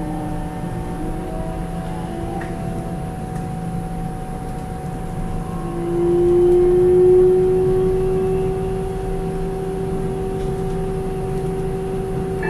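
Taiwan Railway EMU700 electric train running, heard from inside the passenger car: a steady rumble with several held whining tones from its electric drive, one of which swells louder about six seconds in and then eases.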